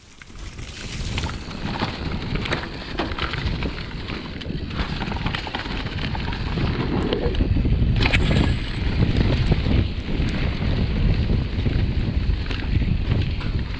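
Wind buffeting the microphone of a helmet or chest camera while a Giant Reign full-suspension mountain bike rides fast down a dirt trail covered in wet leaves: tyres rolling, with many scattered knocks and rattles from the bike over roots and bumps.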